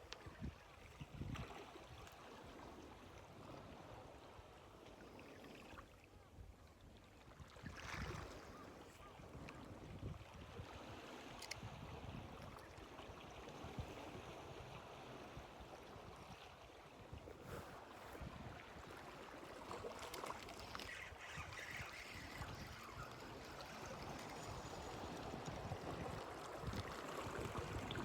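Faint outdoor ambience of water and wind noise, with occasional bird calls.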